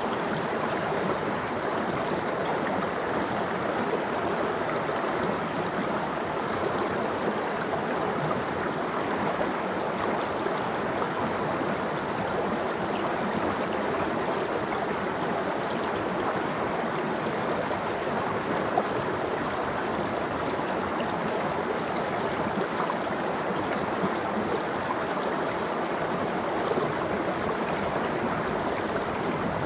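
Water of a valley stream flowing steadily over rocks: an even rush of running water that does not let up.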